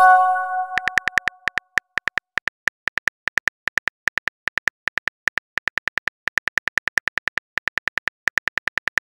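A messaging-app incoming-message chime, a short bell-like chord that fades, then rapid virtual-keyboard key clicks, about six a second, as a message is typed.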